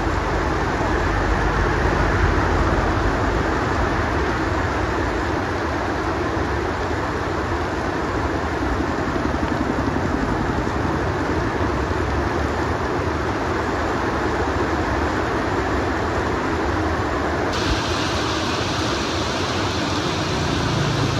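Steady heavy rain: a dense, even hiss with a low rumble underneath. About three-quarters of the way through, the high end of the hiss changes abruptly.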